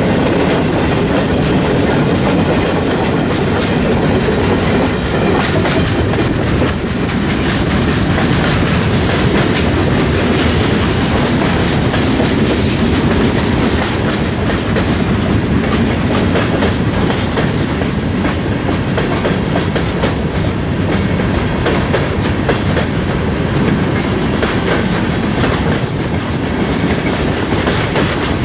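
Freight train cars rolling past: a loud, steady rumble of steel wheels on rail, with the clickety-clack of wheels over rail joints.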